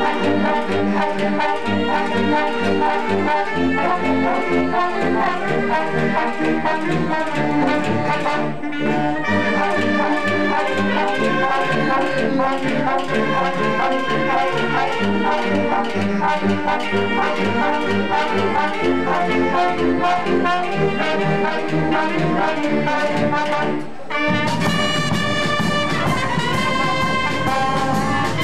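Brass band playing: trumpets and trombones carry the tune over bass notes pulsing steadily on the beat. The sound changes abruptly about three-quarters of the way through, then the brass carries on.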